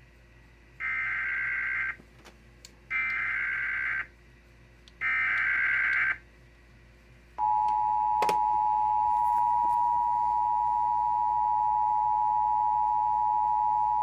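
Emergency Alert System SAME header: three bursts of screeching digital data, each about a second long, that encode a severe thunderstorm watch alert. About seven seconds in, the EAS two-tone attention signal begins, 853 and 960 Hz sounded together, and holds steady, with a single click shortly after it starts.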